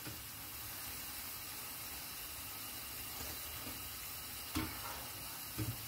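Pumpkin fritters deep-frying in hot oil in a frying pan: a steady sizzle, with two short soft knocks near the end.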